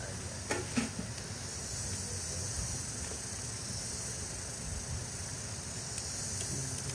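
Steady chorus of insects over an even hiss, with a couple of short clicks just under a second in.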